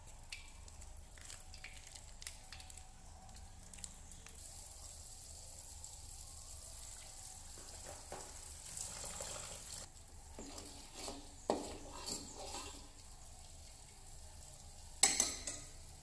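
Oil sizzling in a wok, a steady high hiss that builds after a few seconds. Sharper crackles follow in the middle, and a louder burst of sizzle comes near the end.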